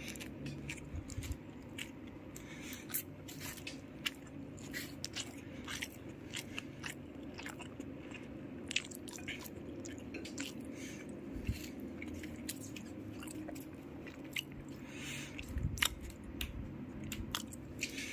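Close-up chewing and mouth sounds of someone eating rice and pork sisig, many small wet clicks and smacks throughout, over a steady low hum.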